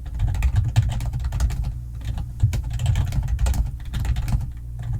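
Fast typing on a computer keyboard: a dense run of key clicks with brief pauses about two seconds in and again near the end.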